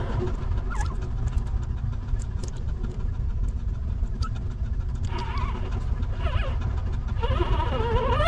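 Newborn puppies whining, with high, wavering cries that slide up and down, heard around five seconds in, again a little later, and longest near the end. A steady low rumble runs underneath.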